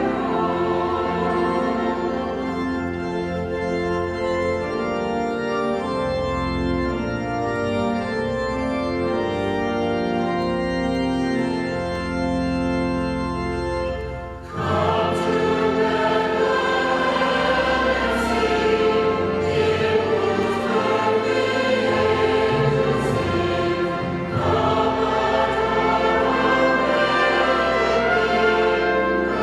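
Choir singing sacred music with instrumental accompaniment, in sustained chords. It breaks off briefly about halfway through, then comes back louder.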